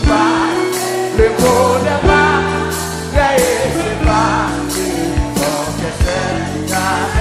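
Gospel worship song: a voice singing over a band with a steady drum beat and held bass notes.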